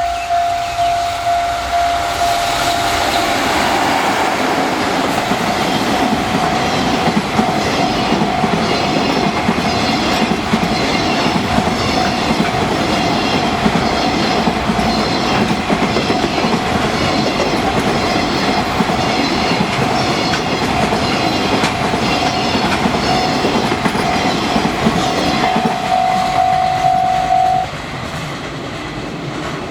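Level-crossing alarm ringing in repeated strokes while an EF65 electric locomotive hauls a container freight train through the crossing, the wagon wheels clacking rhythmically over the rail joints. The alarm stops about 28 seconds in, and the wagons keep rolling past.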